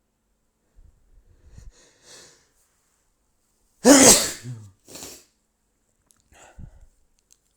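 A man sneezes once, loudly, about four seconds in, after a breath drawn in. A short breathy burst follows about a second later.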